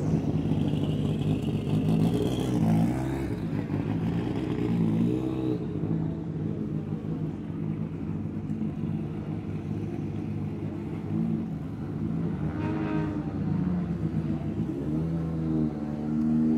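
British Touring Car Championship cars' turbocharged four-cylinder engines idling steadily, with a couple of revs that rise in pitch in the second half.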